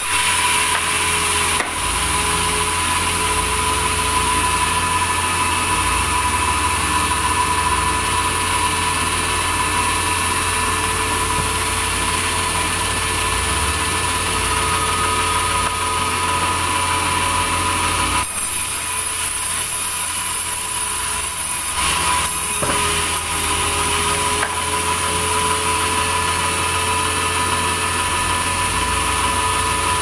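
Large vertical sawmill band saw running steadily with a constant whine, its blade cutting through timber. A few brief knocks come in the second half.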